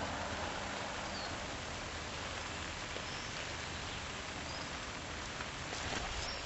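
Steady outdoor background hiss, with a few faint, short, high chirps scattered through it.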